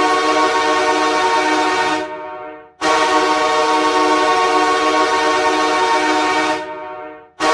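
Hockey goal horn blowing two long blasts. The first is already sounding and stops about two seconds in; the second starts just under a second later, holds for almost four seconds, and dies away near the end.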